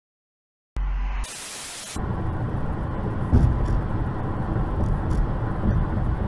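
Silence, then a brief burst of static hiss, then steady road and engine noise heard from inside a moving car through a dashcam microphone, with a few faint clicks.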